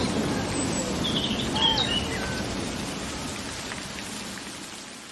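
Rain falling with birds chirping, short chirps in the first two seconds, the whole fading out steadily.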